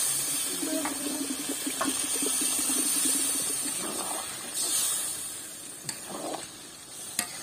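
Water poured from a plastic jug into an iron karahi of browned chicken curry, splashing into the hot pan for about four seconds before easing off.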